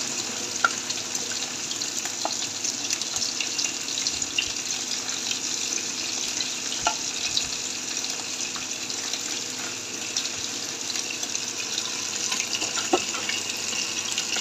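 Lemongrass-and-chili-coated fish frying in hot oil in a nonstick pan: a steady sizzling hiss with occasional pops.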